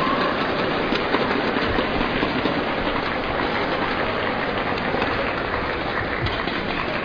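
Steady crowd noise of a badminton arena audience between rallies, with a few faint clicks.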